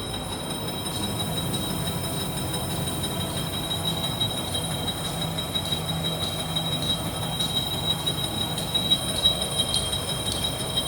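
Roll-to-roll label printing line with an inkjet colour printer, running steadily at production speed of about 60 m per minute. It makes a continuous mechanical hum with high steady whines over it and scattered light ticks.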